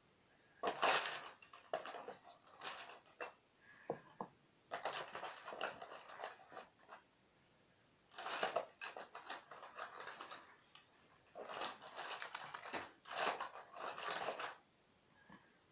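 Pencils being handled off-camera: short rasping and clicking in several bursts with brief pauses between.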